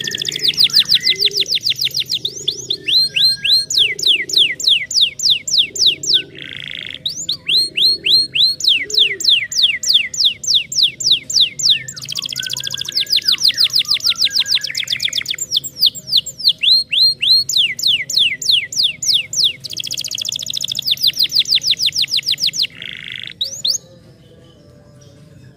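Domestic canary singing: long runs of fast trills, each a rapid string of identical high whistled notes, changing from one trill to the next with short breaks, and stopping shortly before the end.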